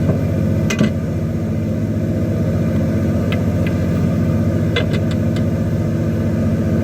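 Fishing boat's engine running with a steady hum, and a few small, sharp clicks about a second in and again around the middle.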